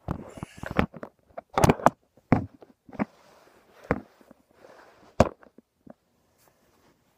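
A phone camera being handled and set down on a shelf: a string of knocks, bumps and rustles, dying away about five seconds in.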